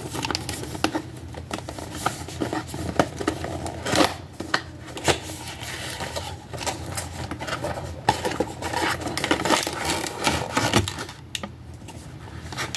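Cardboard product box being pulled open by hand and its clear plastic case slid out: a steady run of scraping and rustling with many small clicks, dropping off briefly near the end.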